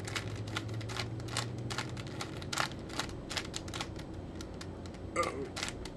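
A Rubik's Cube being turned by hand while it is solved: rapid, irregular clicks and clacks of the plastic layers twisting.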